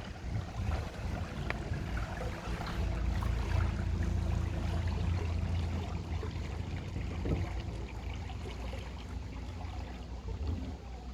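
Small boat moving on a river, water sloshing and trickling along the hull over a low steady rumble that swells in the middle and eases off toward the end.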